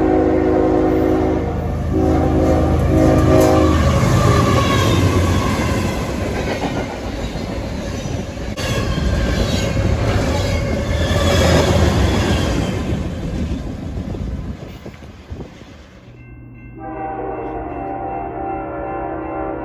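Freight locomotive horn blasting three times as the train nears, then a double-stack intermodal freight train passing close by with a loud rumble and clatter of wheels on rail. Near the end a second train's horn sounds in one long steady blast as it approaches.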